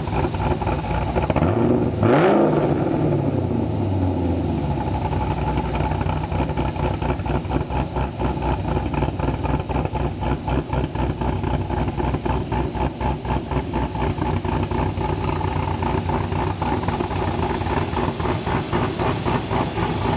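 Camaro Z28's cammed 7.0-litre LS7 V8 blips once about two seconds in, the revs rising and falling back, then settles into an idle with a choppy, pulsing lope.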